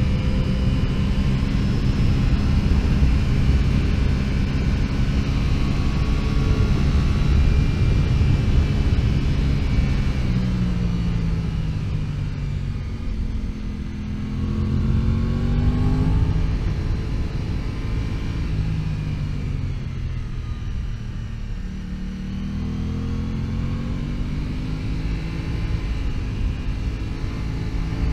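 Aprilia RS660's 659 cc parallel-twin engine running under way. The revs drop about a third of the way in, then rise and fall twice more as the throttle is rolled off and on.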